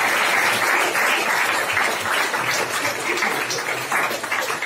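Audience applauding, the clapping thinning out into separate claps toward the end.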